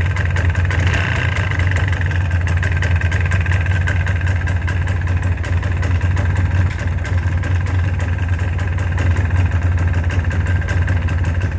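1999 Polaris Xplorer 400L ATV's single-cylinder two-stroke engine idling steadily, with a rapid, regular knock running through it; the owner hears it as a knock somewhere in the motor.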